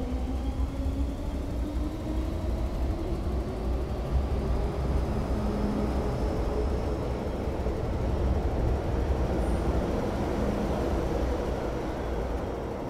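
Metro-Cammell M-Train electric multiple unit pulling out of the station. Its traction motors whine in several tones that climb steadily in pitch as it gathers speed, over the rumble of the wheels on the rails. The sound eases near the end as the last cars pass.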